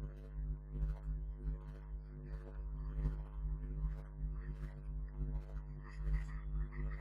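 Pen stylus scratching on a writing tablet in short strokes, a few a second, as handwriting is written, over a steady low hum.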